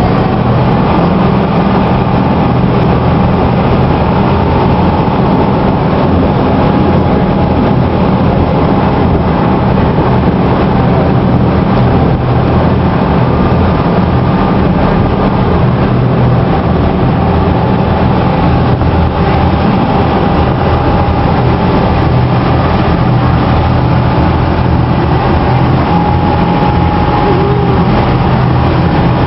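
Tour boat's engine running steadily under way with its propeller engaged: a loud, even low hum with a thin steady whine above it.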